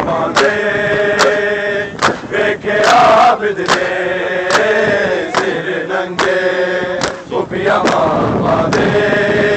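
A crowd of male mourners chants a noha lament in unison, with many hands slapping bare chests together in matam. The slaps fall as one sharp beat about every eight-tenths of a second.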